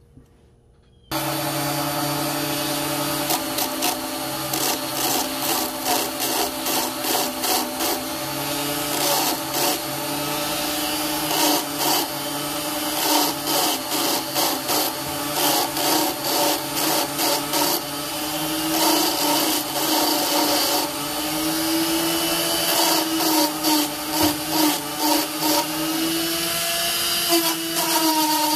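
A small lathe spins a ring on a mandrel while a handheld rotary tool's sanding drum sands the opal inlay: a steady motor whine with irregular rasping scratches of the drum against the ring. It starts abruptly about a second in, and the motor's pitch wavers up and down in the second half.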